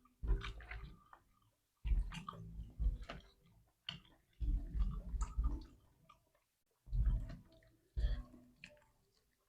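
Close-miked chewing and eating mouth sounds from fried chicken and rice, coming in irregular bursts about every second or so with short quiet gaps between.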